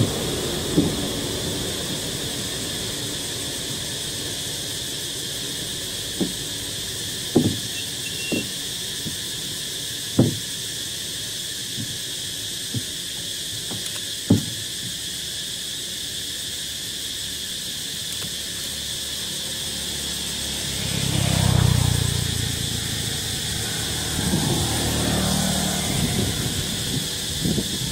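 Steady high drone of insects, with a few short sharp clicks in the first half and a low rumble that swells and fades about three quarters of the way through.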